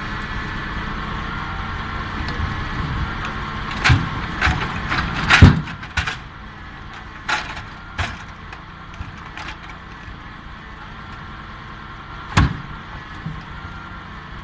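Tractor engine running under hydraulic load while a timber crane's grapple drops logs into the trailer bed: a cluster of heavy wooden knocks about four to six seconds in, the loudest at about five and a half seconds, then single knocks near seven, eight and twelve seconds. The engine's steady drone eases off about six seconds in.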